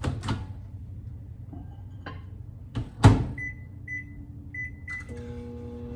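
Microwave oven being loaded and started: a few clicks, then the door shutting with a loud clack about three seconds in, four short keypad beeps, and the oven starting its steady running hum near the end.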